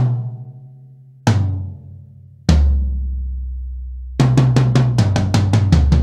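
Yamaha 9000 birch drum kit's toms struck one at a time from high to low, each left to ring out. Then a fast roll of strokes descends around the toms.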